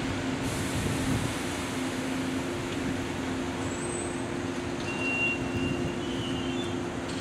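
583 series sleeper electric train standing at the platform, its onboard equipment running with a steady hum on two constant low tones over an even rushing noise.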